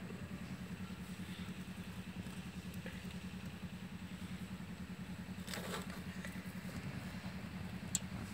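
An engine running steadily with a low, fast, even pulsing, with a brief rustle about two-thirds of the way in and a single sharp click near the end.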